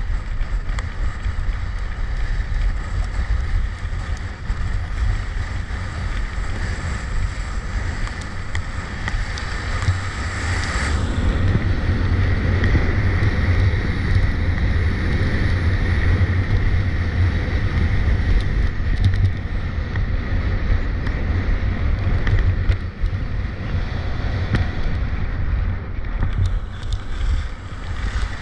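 Wind buffeting a ski camera's microphone on a downhill run, with the hiss of skis sliding over the snow. It is steady and gets louder about ten seconds in.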